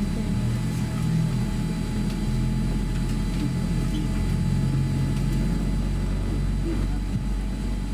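Steady cabin hum inside a Boeing 787-8 during pushback: an even low drone with a few constant whining tones from the aircraft's ventilation and systems.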